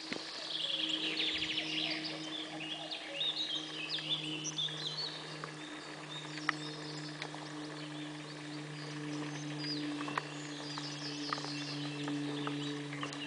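Several small birds singing and chirping in woodland, a busy run of trills in the first few seconds and scattered calls after. A steady low hum runs underneath, with a few faint clicks.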